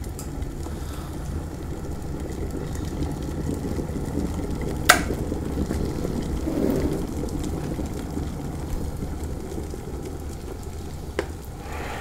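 Glass electric kettle at a full rolling boil, a steady bubbling rumble. About five seconds in there is a sharp click as the kettle switches itself off at the boil, and the bubbling carries on.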